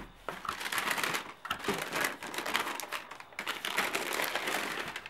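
Tissue paper crinkling and rustling as it is folded back from sneakers in a cardboard shoebox, mixed with short clicks and taps of handling.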